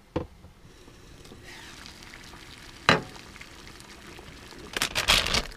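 Cooking on a stove: a faint steady hiss with two sharp knocks, then a short burst of sizzling and clattering near the end.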